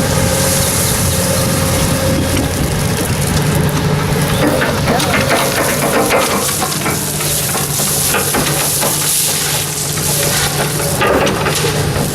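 An engine running steadily under a continuous hiss, with irregular scraping and clattering of shovelling and digging in silt and gravel that picks up about four seconds in.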